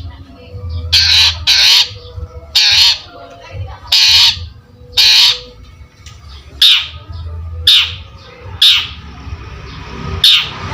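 Long-tailed shrike (cendet) giving loud, harsh, scratchy calls in quick succession, about one a second and sometimes in pairs.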